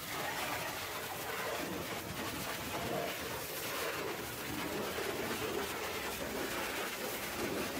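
Pressure washer spraying water against the steel underside of a dump truck, a steady hiss of spray on metal.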